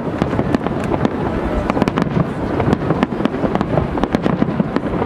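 Fireworks display: aerial shells bursting in a dense, unbroken barrage, with many sharp cracks and pops, several a second, over a continuous booming rumble.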